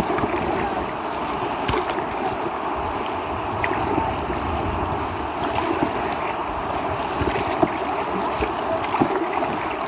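Steady rushing of whitewater in river rapids, with a few faint light knocks.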